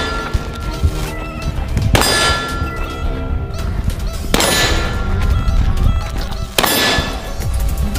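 Three loud metallic clangs, evenly spaced about two seconds apart, each ringing out, over a continuous low rumble.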